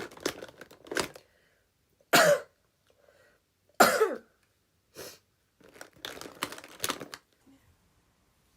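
A woman sneezing twice, about two and four seconds in: two sharp, loud bursts, each with a voiced cry that falls in pitch.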